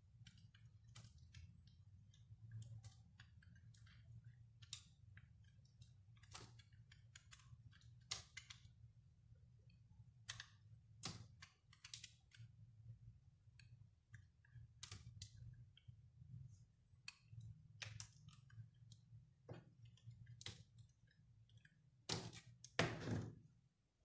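Snap-off utility knife blade cutting into a bar of soap: irregular crisp clicks and scrapes as slices and shavings break away, a few a second, with a louder crunch near the end.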